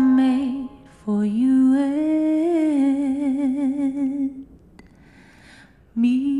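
A woman's solo voice singing a slow melody into a microphone, with long held notes and wide vibrato. The phrase breaks off about four and a half seconds in, and a new held note begins near the end.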